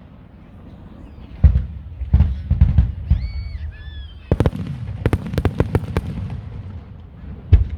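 Aerial fireworks exploding in clusters of sharp bangs with rumbling tails: a single report, then a quick run of bangs, then a dense volley about halfway through, and one more near the end. A brief whistling tone sounds just before the volley.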